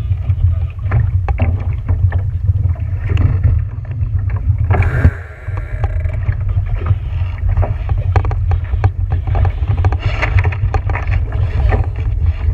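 On board a small boat on the water: a steady low rumble of wind on the microphone, with irregular water splashes and slaps against the hull. A louder bump comes about five seconds in.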